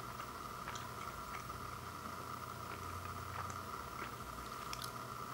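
Quiet steady background hiss with a constant hum, and a few faint, scattered soft clicks.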